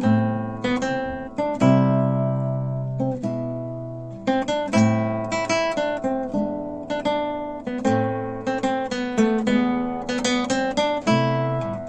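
Acoustic guitar music: plucked notes and strummed chords, each chord ringing out and fading before the next.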